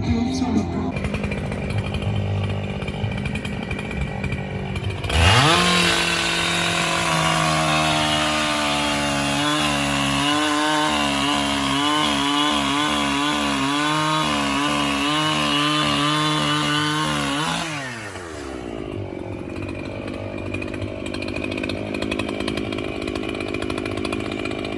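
Chainsaw idling, then revving up to full throttle about five seconds in and cutting into wood, its pitch wavering under load for about twelve seconds. It drops back to idle near the end.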